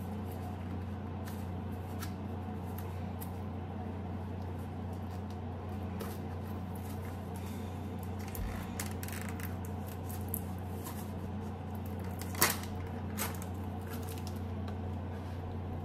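Crumbled feta cheese being sprinkled by hand over a bowl, heard as soft rustles and light taps from handling the cheese and its container. The sharpest taps come about twelve and thirteen seconds in, over a steady low hum.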